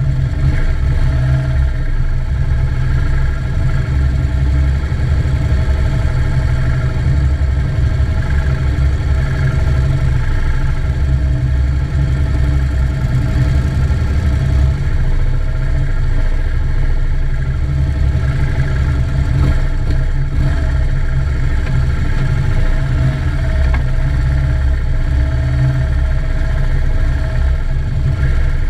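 Police motorcycle engines running steadily at a slow procession pace, picked up by a camera mounted on one of the bikes, with the other escort motorcycles riding close alongside and ahead.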